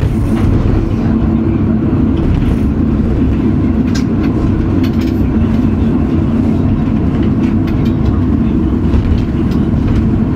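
Funicular railway car running along its track, heard from inside the cabin: a steady rumble with a constant hum and a few light clicks and rattles.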